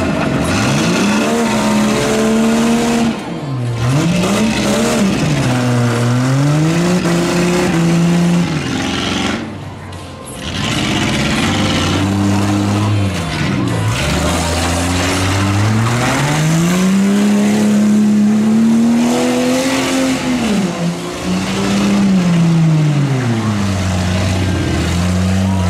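Demolition derby pickup truck engine revving hard, its pitch climbing and falling over and over as the truck accelerates and backs off, with a short lull about ten seconds in.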